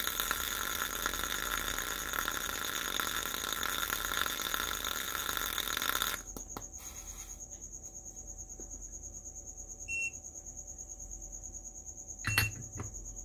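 Hot C245 soldering tip sizzling in a cup of water, with the station heating at full power, about 200 watts; the sizzling stops about six seconds in. A short beep comes near ten seconds, and a clack near the end as the handle is set in its stand.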